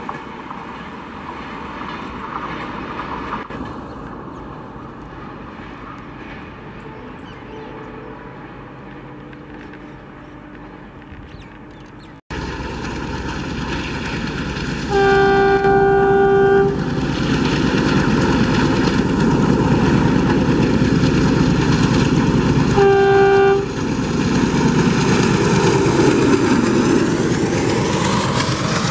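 Train running, its noise fading away, then after an abrupt cut a louder passing train sounding its horn twice: a blast of about a second and a half, then a shorter one.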